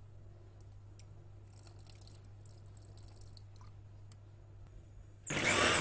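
Faint trickle and light clicks as vinegar is poured from a bottle into a mini chopper bowl of roasted eggplant and tahini; near the end, the electric mini chopper's motor starts abruptly and runs for about half a second.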